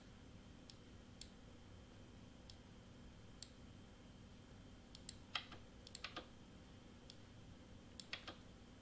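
Scattered computer mouse clicks, about a dozen, some in quick clusters around the middle and near the end, over a faint steady room hum.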